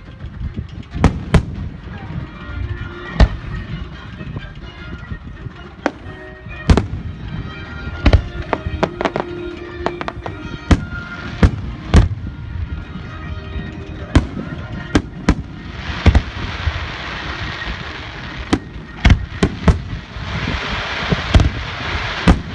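Aerial fireworks bursting close by: a rapid series of sharp booms, with stretches of dense crackling about sixteen seconds in and again near the end.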